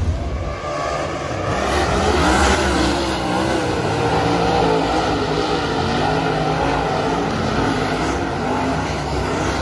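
Several dirt track race cars racing around the oval, their engines running hard, with the pitch of the engines sliding up and down as the cars pass.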